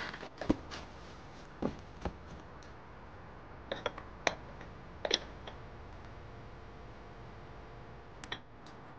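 Scattered light clicks and knocks of small objects handled on a desk, among them a small ceramic plant pot being lifted off the desktop, over faint room tone. The clicks bunch up in the first half and come once more near the end.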